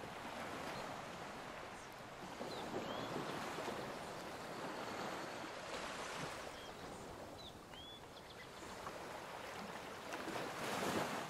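Ocean waves washing in and out: a steady rush that swells and eases every few seconds. Short, high two-note chirps are heard twice.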